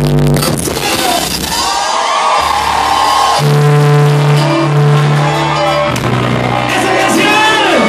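Live duranguense band music at loud volume: keyboard chords held over bass and drums, with singing or shouting voices over it and some crowd noise.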